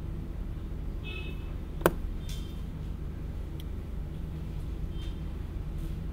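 Steady low electrical hum of room tone, with one sharp click about two seconds in and a few faint high squeaks.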